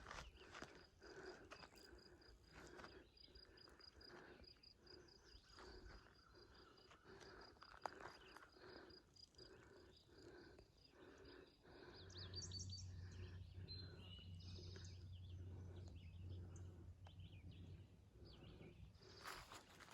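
Faint footsteps of a hiker walking a forest trail, about two steps a second. An insect's steady pulsing high trill runs through the first half, and a few bird chirps come about twelve seconds in, along with a low hum that lasts several seconds.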